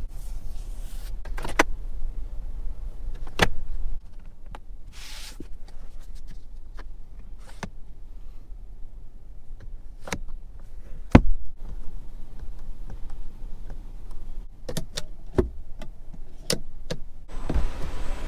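Sharp single clicks from a Geely Binyue COOL's cabin fittings being worked by hand: the sun visor's vanity mirror cover snapping open and overhead light-console buttons being pressed, a few clicks spread out and then a quicker run of them near the end, over a low cabin hum.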